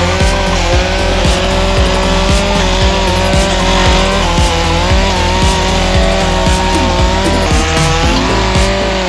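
Echo chainsaw running at high speed while carving into a log, its pitch dipping briefly and recovering several times as it bites into the wood.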